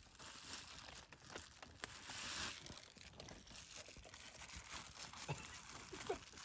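Faint crinkling and rustling, swelling about two seconds in, with scattered small clicks.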